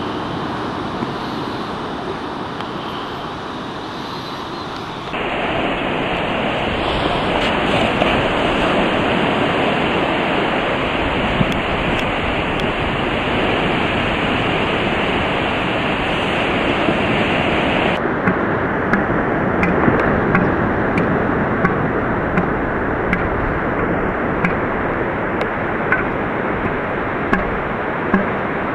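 Steady rushing noise of surf and wind on the microphone. Its tone changes abruptly about five and eighteen seconds in, and from the second change on, short sharp clicks stand out above it every second or so.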